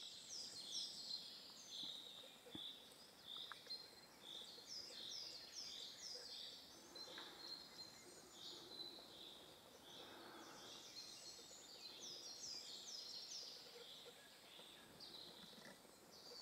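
Faint birdsong in woodland: a long run of high, quick notes that each slide downward, repeated about two to three times a second.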